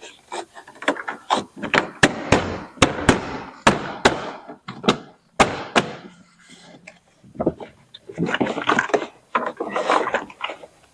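A rapid series of sharp knocks and thumps as a Jeep Grand Cherokee's plastic interior door trim panel is pushed and struck onto the door to seat its clips, most of them in the first five seconds, with lighter knocks and handling noise after.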